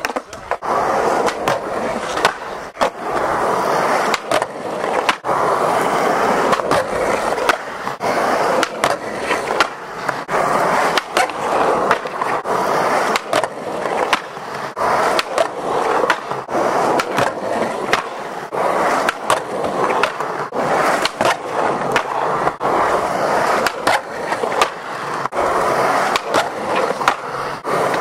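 Skateboard wheels rolling on concrete, with repeated sharp clacks of the board popping and landing and the nose and front truck grinding along a wooden ledge. These are nose-blunt slides done over and over.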